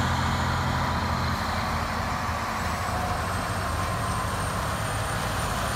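Diesel engine of a semi-truck tractor running at low speed as it pulls a loaded flatbed trailer across a lot, a steady low hum that is a little louder in the first second and a half.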